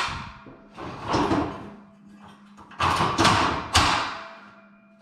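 Metal scaffolding parts clattering and scraping as they are handled and fitted, in about four loud bursts, over a faint steady hum.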